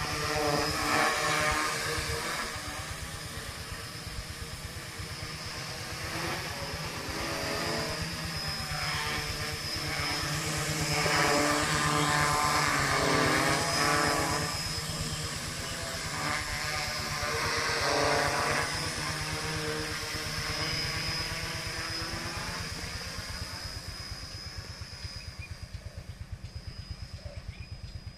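Homemade F450 quadcopter's electric motors and propellers buzzing in flight, the pitch rising and falling with throttle changes. It grows loud as the drone passes close, then fades toward the end as it flies off into the distance.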